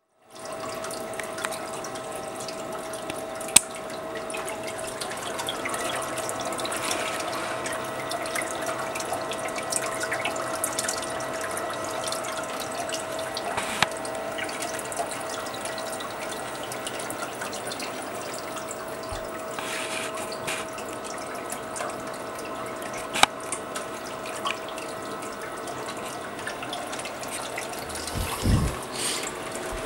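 Small 12-volt water pump running with a steady whine while water splashes and trickles. Three sharp clicks come about ten seconds apart, and there is a low thump near the end.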